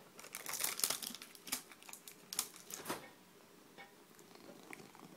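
Cat treat packet being handled, crinkling and clicking in a quick run of sharp crackles over the first three seconds, then only faint scattered clicks.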